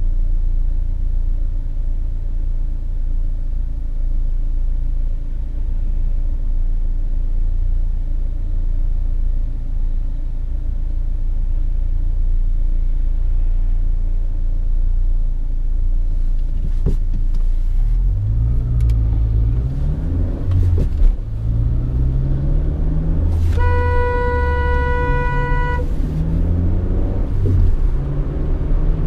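Car engine and road rumble, steady and low for most of the stretch, then rising in pitch in several sweeps as the car accelerates through the gears. A car horn sounds once for about two seconds near the end.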